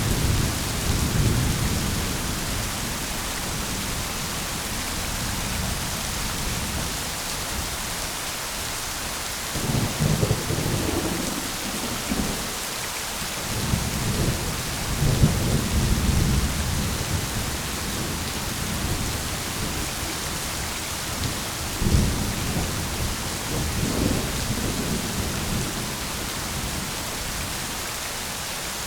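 Steady rain with thunder rumbling again and again, in several low rolling swells, one of them opening with a sharp crack about two-thirds of the way through.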